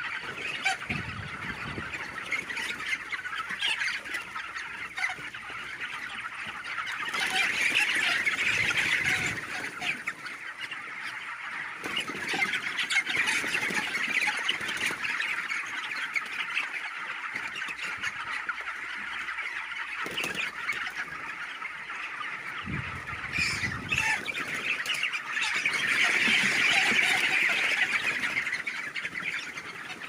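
A large flock of 26-day-old broiler chickens calling together in a continuous dense chatter. The chatter swells louder twice, about a quarter of the way in and again near the end.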